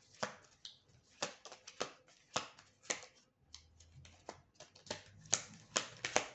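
Deck of oracle cards being shuffled by hand: about a dozen sharp, irregular snaps and slaps of cards against each other.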